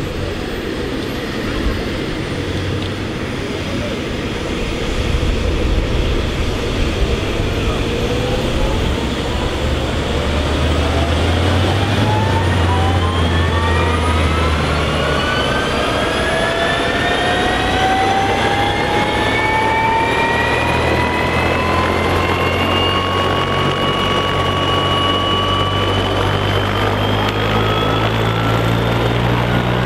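Agusta A109 twin-turbine helicopter starting up on the ground: a steady low rotor thrum, with turbine whines that rise in pitch from about eight seconds in and level off near the end as the engines and rotor spool up towards take-off speed.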